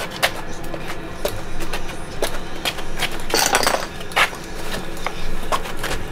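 Scattered knocks, clicks and clunks of Fox ESS stackable battery modules being carried and set down onto a stack, with a brief louder scuffing sound a little past halfway.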